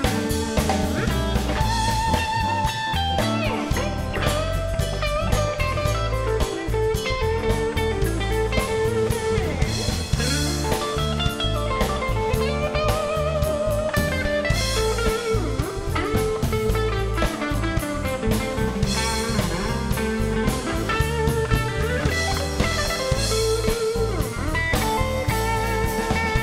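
Live blues band playing an instrumental break: an electric guitar solo of held, wavering notes over the drum kit and the rest of the band.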